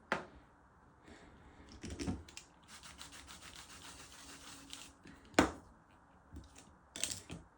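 A nail-stamping scraper scraped across a metal stamping plate for about two seconds, rasping, set among sharp clicks and taps of the tools and polish bottle; the loudest click comes about five seconds in.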